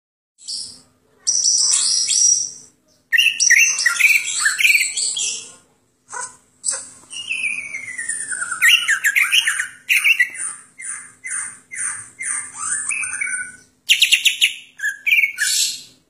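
Cucak ijo (greater green leafbird) singing an 'isian' song: a varied run of whistles, rapid trills and chattering phrases filled with imitations of other birds. One long falling whistle comes about seven seconds in, followed by a series of short repeated notes, with a few brief silent breaks between phrases.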